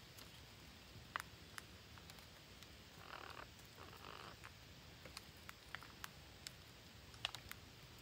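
Faint, scattered sharp clicks and two short rustles about three and four seconds in, from green parrots nibbling at leaves and twigs in a shrub.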